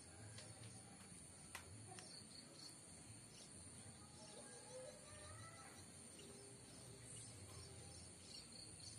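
Near silence: faint outdoor ambience with a steady high-pitched insect drone and a few faint bird chirps about halfway through, plus a single faint click about a second and a half in.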